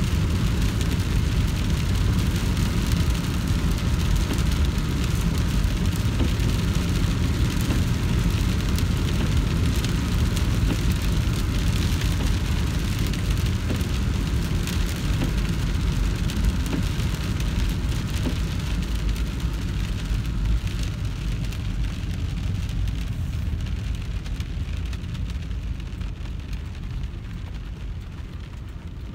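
Rain pattering on a moving car's windshield and body, over a steady low rumble of tyres on wet road, heard from inside the cabin. The sound eases off gradually over the last several seconds.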